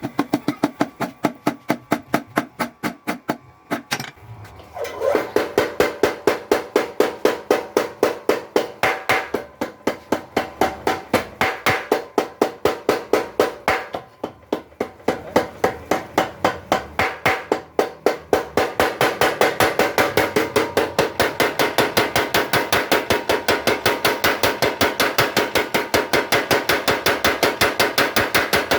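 Mechanical blacksmith's power hammer pounding in a rapid, steady rhythm of several metallic strikes a second. There are short breaks about four seconds in and around the middle, then an even, faster run through the last third.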